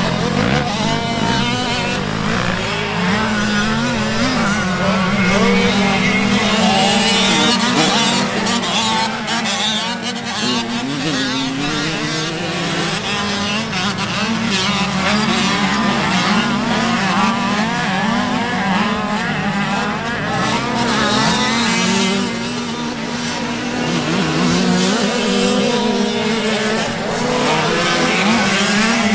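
Several 50cc two-stroke motocross bikes racing, their high-pitched engines revving up and down constantly as riders accelerate and back off around the track. A steady low drone runs underneath.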